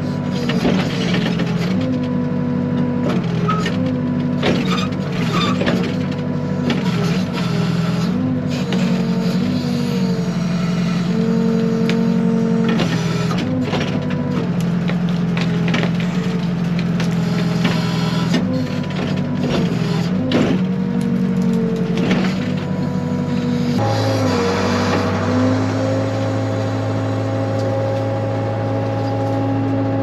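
Backhoe's diesel engine running under load while the hoe digs out trees, its pitch dipping and recovering again and again as the hydraulics strain. Scattered cracks and scrapes of branches and brush are mixed in. About 24 seconds in the engine settles into a steadier note.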